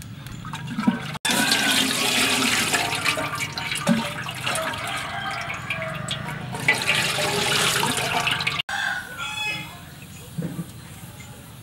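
Water boiling hard in the base of a metal steamer pot, a loud bubbling rush that starts about a second in and cuts off abruptly near the end. A soft knock follows as food is set into the pot.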